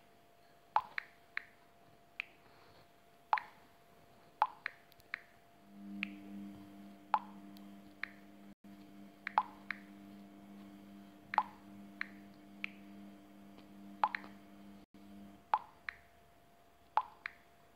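Short soft pops from a smartphone as WhatsApp messages of one letter each are typed and sent, one or two pops every second or so, some in quick pairs. A low steady hum joins in from about six seconds in and stops near fifteen seconds.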